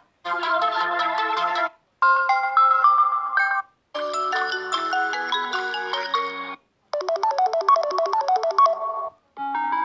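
Samsung Galaxy A20 ringtones played one after another: short electronic melodies, each cut off after one to three seconds, with a brief silence before the next. Four play in full and a fifth begins near the end.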